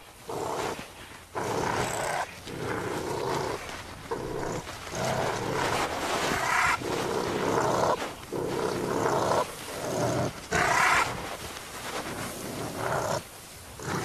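A leopard and a honey badger fighting: repeated harsh growls, some rough and some with a rising pitch, as the leopard tries to hold the badger by its loose-skinned neck and the badger struggles.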